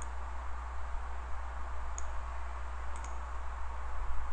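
Steady low electrical hum and hiss from the desk microphone, with a few faint, short computer-mouse clicks about two and three seconds in.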